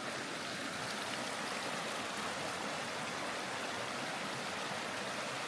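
River water flowing over rocks, a steady rushing.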